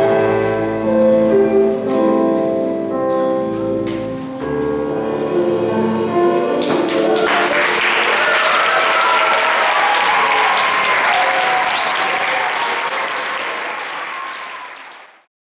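A choir with accompaniment sings the closing notes of a song. From about seven seconds in, the audience applauds, with a few voices calling out, and the sound fades out near the end.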